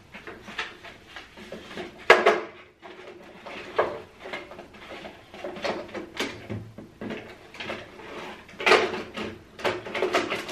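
Toiletries and clear plastic organizer bins being handled inside a bathroom vanity cabinet: irregular clicks, knocks and rustles, the loudest knocks about two seconds in and near the end.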